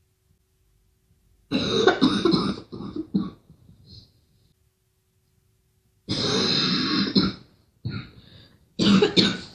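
A girl coughing and clearing her throat in harsh fits: a cluster of coughs about a second and a half in, then a longer hacking cough around six seconds in, followed by more short coughs near the end.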